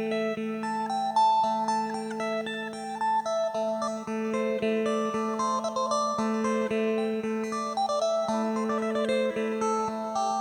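Electric phin, the Isan three-string lute, with a padauk-wood body, played: a quick plucked melody over a steady drone string.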